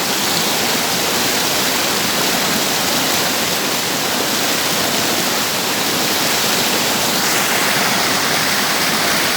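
A waterfall's water falling and rushing in a steady, loud roar.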